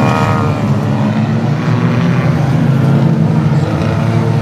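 Engines of a pack of banger racing cars running together in a steady, loud drone, with one engine revving up near the start.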